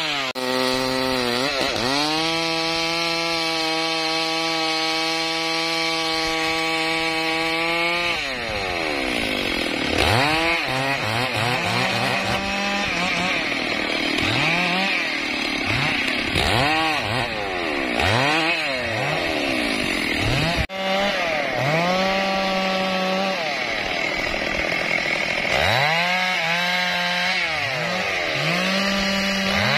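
Petrol chainsaw cutting sonokeling (Indian rosewood) logs: held at high revs for several seconds, then repeatedly revved up and let fall back in short bursts.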